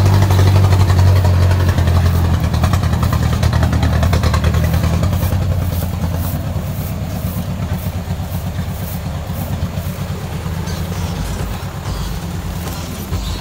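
Four-wheel-drive truck's engine running steadily, low and even, slowly growing fainter through the second half.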